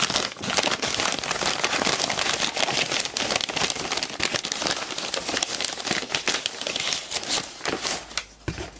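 White packing paper crinkling and rustling as it is rummaged through and pulled out of a cardboard box, a thick run of small crackles that dies down near the end.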